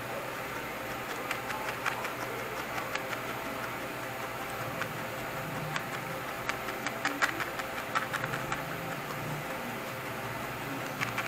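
A felting needle stabbing again and again through wool fibres into a foam pad, heard as a string of faint, irregular short ticks. A steady hum runs underneath.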